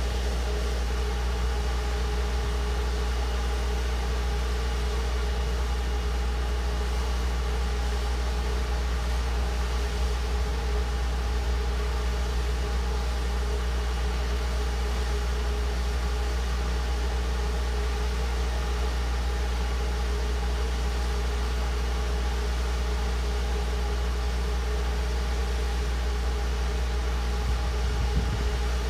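Kohler 24RCL propane standby generator running steadily, its water-cooled GM four-cylinder engine held at a constant 1800 RPM: an even, low engine hum with no change in pitch.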